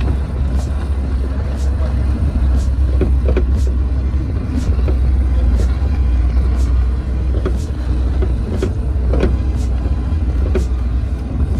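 Petrol Mahindra Thar driving: a steady, loud low rumble from the engine and tyres, with scattered small knocks and rattles.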